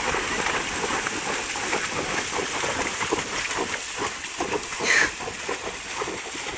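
Horses' hooves splashing and sloshing through shallow water, a continuous uneven patter of splashes from several horses walking and trotting. A brief high-pitched cry stands out about five seconds in.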